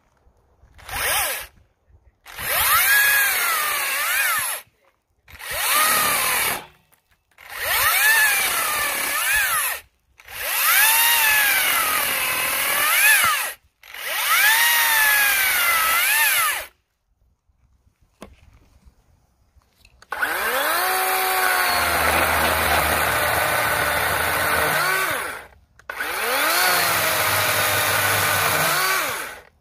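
Cordless brushless chainsaws cutting through a white birch log. First the Makita 10-inch top-handle chainsaw runs in a series of short trigger bursts, its whine dipping and recovering as the chain bites. After a pause of a few seconds the DeWalt 12-inch chainsaw runs in two longer cuts.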